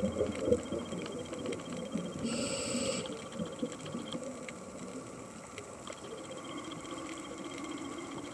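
Underwater ambience picked up through a dive camera's housing: a muffled bubbling and crackling, louder for the first few seconds, with a short hiss about two and a half seconds in and a few scattered clicks.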